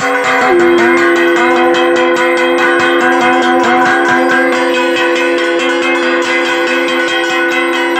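Music: one long held note over a fast steady beat, with plucked strings and bell-like notes.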